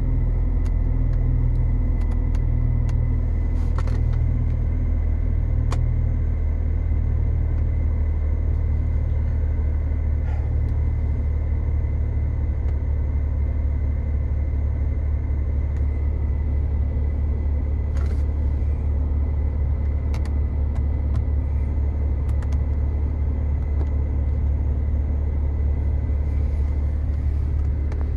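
BMW E90's engine idling steadily, a low hum heard inside the cabin, with a faint high whine and a few scattered light clicks.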